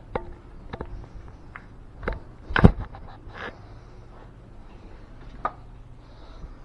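Irregular knocks and bumps of an action camera being handled and carried about, the loudest thump about two and a half seconds in.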